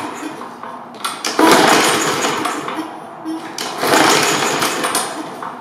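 Briggs & Stratton single-cylinder lawnmower engine cranked on its recoil pull-starter, twice, about a second and a half in and again near four seconds. It turns over without catching and does not start.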